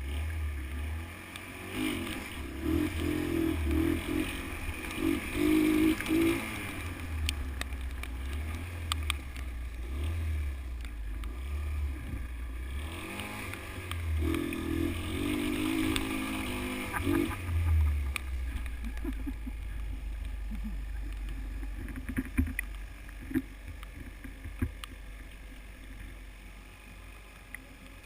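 Honda XL125 motorcycle's single-cylinder four-stroke engine riding off, its note rising and falling repeatedly as it revs and shifts, with wind rumble on the microphone. From about two-thirds of the way through, the engine note becomes steadier and lower.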